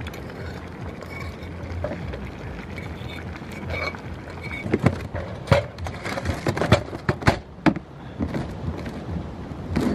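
Metal fork scraping and clinking against a frying pan while stirring sausage and vegetables, with a run of sharp clanks and knocks in the middle.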